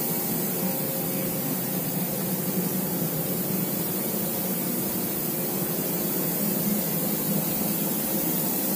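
Steady hiss with a low hum from a CNC milling machine standing at idle in a machine shop, unchanging throughout.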